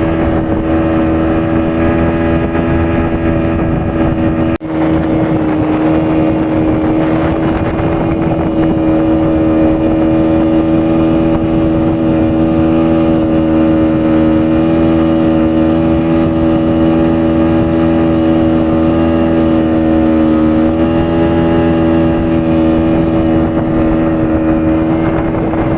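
An engine running steadily at a constant speed, a loud, even drone that breaks off for an instant about four and a half seconds in.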